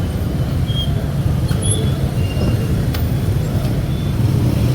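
Street traffic: a steady low rumble of passing vehicles, with a few short high chirps here and there.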